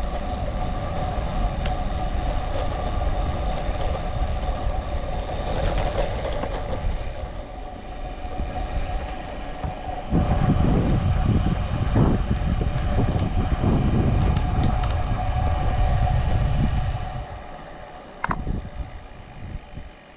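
Wind buffeting the microphone of a camera riding on a moving bicycle, with a steady high whine over it. The wind grows much louder about halfway through and dies down near the end.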